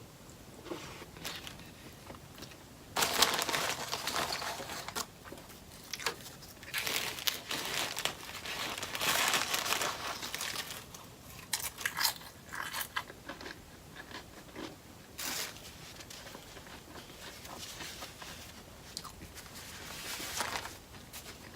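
A person eating close to the microphone: irregular bites and crunchy chewing in clusters, the loudest a few seconds in and again near the middle.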